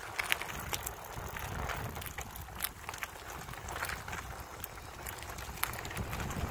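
Wind buffeting an outdoor microphone: a steady low rumble and hiss, with irregular short ticks and knocks scattered through it.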